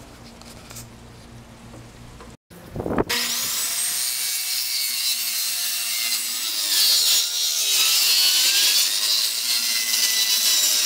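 Corded power saw starting up about three seconds in, its motor whine rising as it spins up, then running steadily as it cuts through a sheet of OSB, getting louder a few seconds later.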